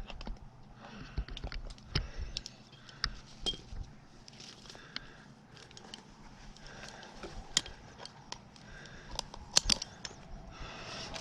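Scattered clicks and light metallic jingling of tree-climbing gear, with twigs crackling.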